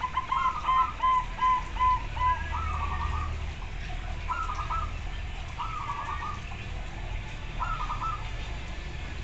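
Zebra doves cooing. A loud run of about six evenly spaced staccato coos comes in the first two seconds, then shorter, fluttering coo phrases come every second or two, birds answering one another.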